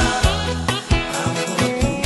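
Background music with a beat and a bass line.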